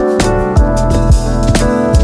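Background music: sustained keyboard chords over a steady drum beat.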